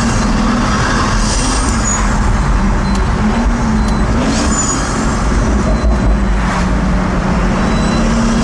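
Pagani Huayra's twin-turbo V12 engine running at a steady cruise, heard from inside the cabin as a loud low drone that wavers a little in pitch, over tyre and road noise.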